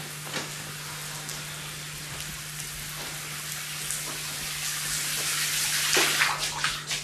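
Showers running in a tiled shower room: a steady hiss of spraying water that gets louder over the last couple of seconds, with a steady low hum underneath.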